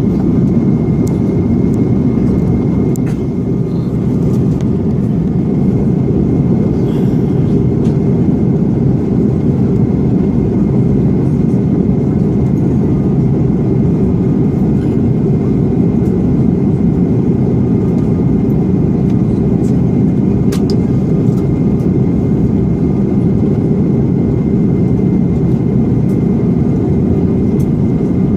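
Steady cabin drone of an Airbus A330-300 airliner in flight, the low rush of airflow and jet engines heard from inside the passenger cabin, with a faint steady whine above it.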